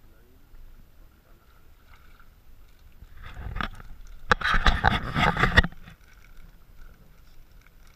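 Seawater splashing and pouring out through the mesh of a homemade wire qarqoor fish trap as it is hauled up out of the water. It builds about three seconds in and is loudest for about a second and a half, then stops.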